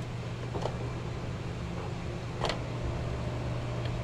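Steady low mechanical hum with two clicks, a faint one about half a second in and a sharper one about two and a half seconds in.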